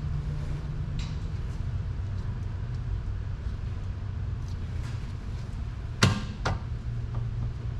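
Two sharp metallic clanks of hand tools, about half a second apart, near the end, with a few lighter ticks earlier, over a steady low hum.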